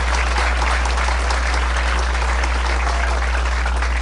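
Audience applauding steadily, a dense patter of many hands, with a steady low hum underneath.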